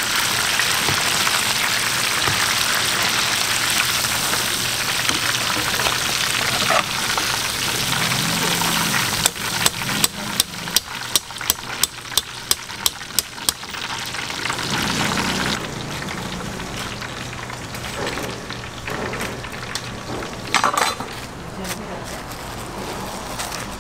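Battered vegetable fritters deep-frying in a wide pan of hot oil, a dense, steady sizzle. About nine seconds in comes a run of about a dozen sharp taps, roughly three a second, and after that the sizzle drops to a quieter background.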